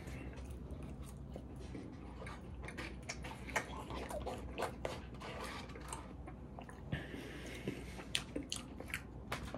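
Close-miked chewing and mouth sounds, with the scattered clicks and scrapes of a plastic fork working inside a paper food container.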